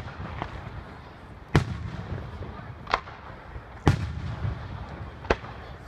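Aerial firework shells bursting: a series of sharp booms at irregular intervals of about a second, four of them loud, the biggest followed by a low rolling rumble.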